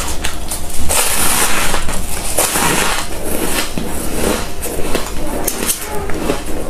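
Crunching of fluffy freezer frost being bitten and chewed close to the microphone: a dense, irregular crackle with a louder crunch about a second in.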